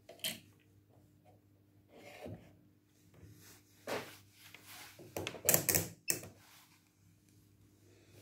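A few short knocks and clatters of hard objects being handled and set down, the loudest cluster a little past the middle, followed by a sharp click.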